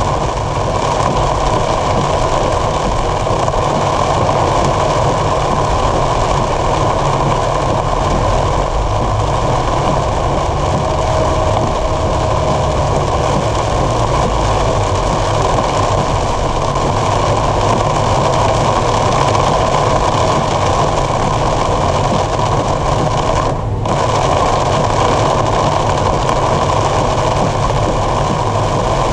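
Torrential rain on a moving car, heard from inside the cabin: rain beating on the roof and windshield mixed with tyre noise on the flooded road, a loud, steady rush.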